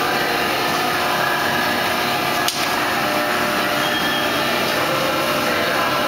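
Pail-filling line machinery with its belt conveyor and transfer system running: a steady drone with several whining tones, and one sharp click about two and a half seconds in.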